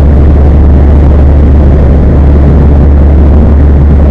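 2016 Mazda 3 GT's four-cylinder engine running through twin Spintech Super Pro Street 9000 mufflers: a very loud, steady, low drone that fills the recording.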